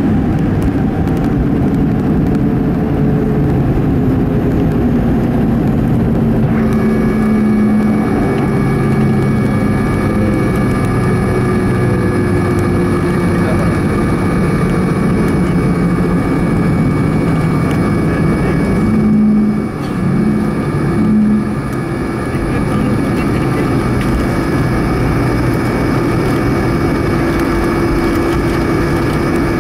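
Cabin noise of a Boeing 737-400 rolling and slowing on the runway after landing, its CFM56 engines at low power with a low hum slowly falling in pitch. A steady whine joins about six seconds in, and the level dips briefly twice about two-thirds of the way through.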